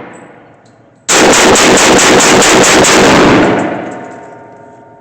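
A pistol fired rapidly, about six shots a second for over two seconds, very loud with echo trailing off after the last shot; the ring of an earlier shot fades at the very start.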